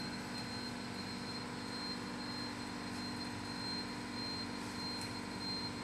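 Steady drone of running workshop machinery: a constant low hum with a thin, high, steady whine over it.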